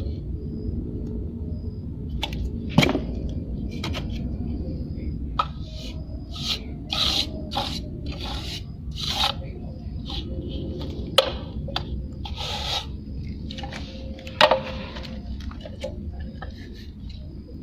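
Plasterer's trowel scraping and smoothing cement render on a wall in short, irregular strokes, with three sharp knocks, over a steady low rumble.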